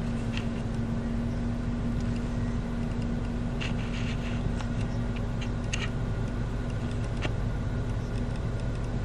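Steady car engine and road noise heard from inside the cabin, a low hum and rumble, with a few faint clicks.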